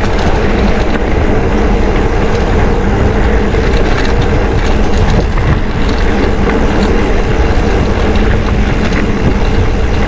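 Mountain bike rolling steadily over a rough dirt road: tyres crunching on loose grit and the bike rattling over bumps, with wind rushing on the microphone.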